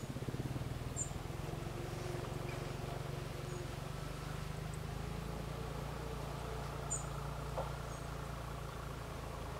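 A steady low engine hum that comes in at the start and holds, with a few faint high bird chirps, twice near 1 and 7 seconds in.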